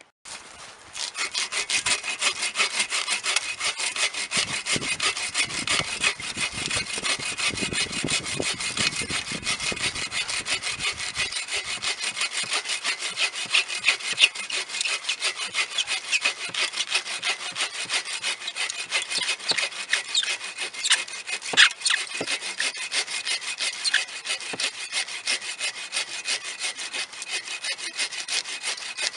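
Agawa Canyon Boreal21 folding bow saw cutting through a fallen birch log, with steady, rapid back-and-forth strokes that start about a second in and keep going without a break.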